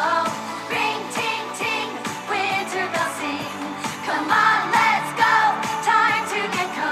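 Pop song: a sung vocal over backing music with a steady beat.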